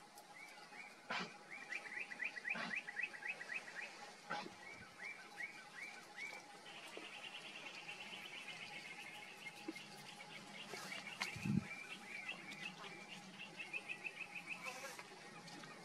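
Small birds chirping in quick runs of repeated notes, with a longer trill in the middle, over a faint steady hum. A few sharp clicks sound early on, and a low thump comes about eleven seconds in.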